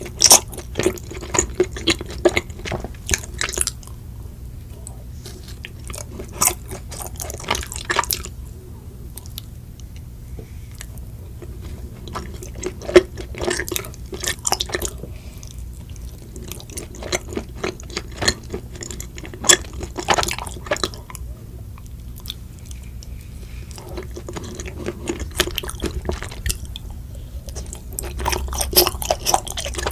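Close-miked chewing of chocolate mochi: wet, sticky mouth sounds and smacks coming in bursts of a few seconds, with short quieter pauses between bites.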